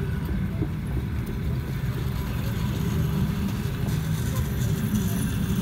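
Low, steady rumble of RZD passenger coaches rolling past along the platform.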